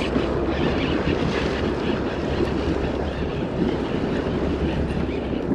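Steady low rumble of a charter fishing boat's engine running.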